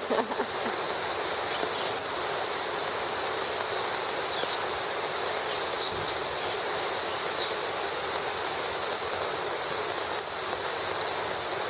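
Heavy rain pouring down, a steady, even hiss of water.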